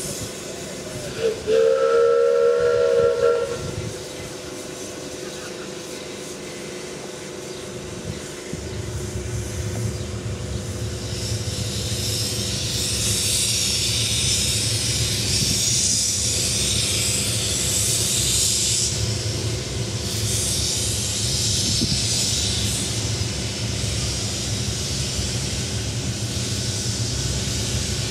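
Miniature steam locomotive's whistle blows once for about two seconds. Some seconds later the engine moves off with a low rumble and loud hissing of steam from its open cylinder drain cocks, in two long spells.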